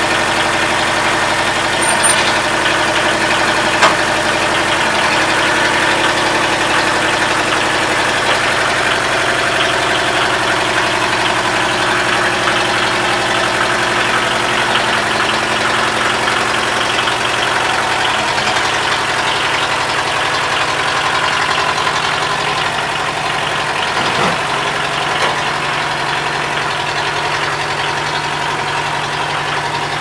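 Compact tractor's engine running steadily while pulling on a strap tied to a large log; its note drops a little about halfway through.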